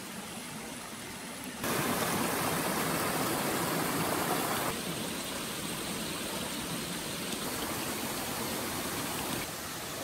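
Shallow forest stream running over rocks: a steady rush of water with no distinct tones. Its level jumps up abruptly about a second and a half in, then steps down twice later.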